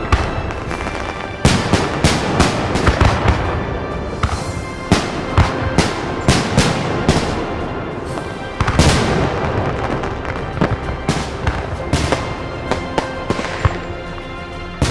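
Many fireworks and firecrackers going off at once in a dense, irregular string of bangs and crackles, with a louder swell of bangs a little past halfway.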